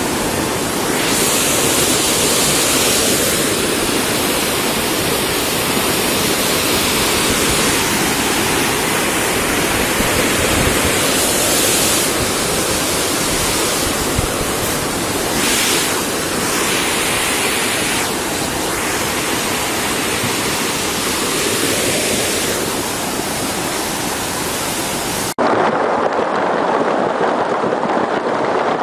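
Rushing, churning water of a tidal bore wave surging up a river, a loud steady noise that shifts in character at each cut. About 25 seconds in it changes abruptly to a duller, lower rush.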